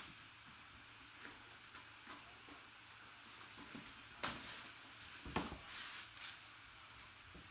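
Faint handling noises of trading-card packaging being opened by hand, with two sharper clicks or crackles about four and five seconds in.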